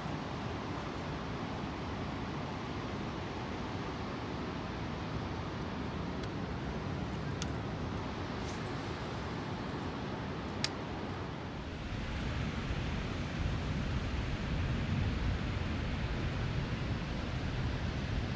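Steady wash of noise from a fishing boat under way while trolling, with water, wind and motor rumble. A few faint clicks come partway through, and about twelve seconds in the low rumble grows louder.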